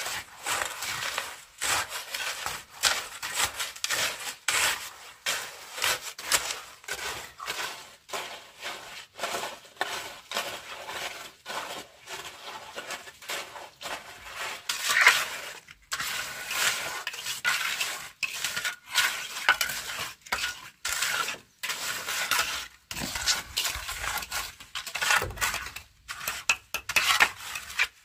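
Metal hoe blade scraping and spreading wet concrete, over and over: gritty strokes dragging through cement and gravel, with knocks where the blade strikes the stones.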